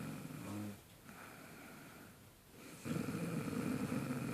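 A woman snoring in her sleep: one snore trails off about a second in, and after a pause of about two seconds the next snore starts.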